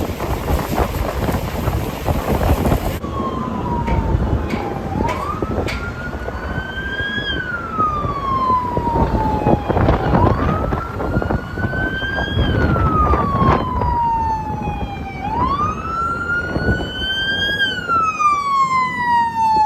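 Emergency vehicle siren wailing, starting about three seconds in: three slow cycles, each a quick rise followed by a longer fall, about five seconds apart. A steady rumble runs underneath.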